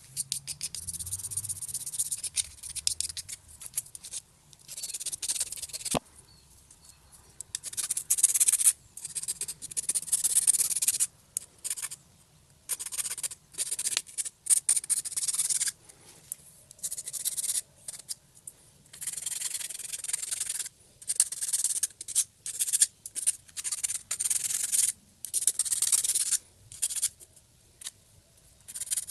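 Small file scraping the edges of plastic cup-holder parts in irregular back-and-forth strokes with short pauses, deburring them.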